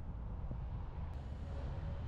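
Steady low rumble of a car driving along a road: tyre and wind noise.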